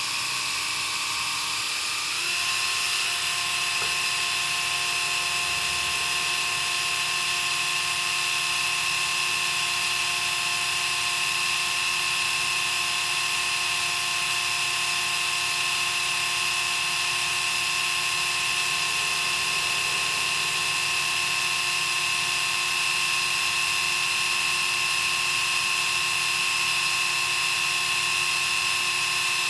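Braun electric epilator running on its own, a steady high motor whine with a rattling buzz. About two seconds in its pitch steps up a little and it gets slightly louder, then holds steady.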